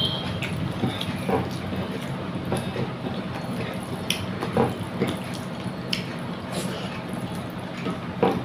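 Wet eating sounds: chewing and smacking of rice and fish curry, with scattered small clicks over a steady low hum.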